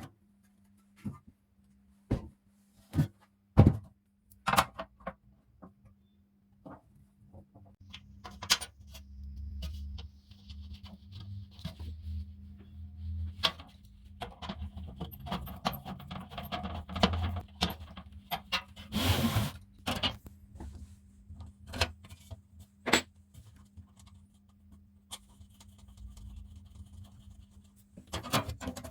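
Metal parts and tools being handled: scattered clicks and knocks, some sharp and loud, with a low rumble through the middle stretch.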